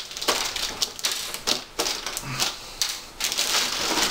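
Clear plastic bag wrapped over an RC truck's body shell crinkling and rustling as hands grip and shift it, in quick irregular crackles.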